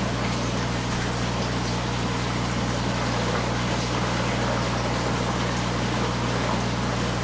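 Aquarium pump and filter running: a steady low hum with constant water bubbling and trickling over it.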